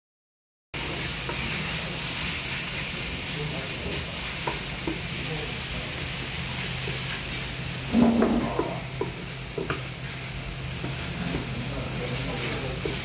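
Chicken, cabbage and green onion in spicy sauce sizzling on a hot round iron dakgalbi pan while being stirred and turned with wooden spatulas, with light scraping and knocks of the spatulas on the pan. A steady low hum runs underneath, and a brief louder sound comes about eight seconds in.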